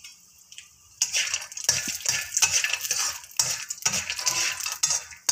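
Spatula scraping and clattering against a metal wok as almonds are stirred in ghee. It is quiet at first, then quick, irregular scrapes start about a second in.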